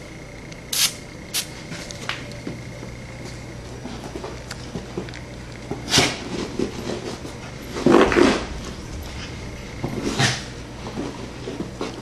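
Two quick hisses from a cologne spray bottle, then a boxer–beagle mix dog rolling and rubbing herself on the carpet, with bursts of scuffling and bumping; the loudest comes near two-thirds of the way in.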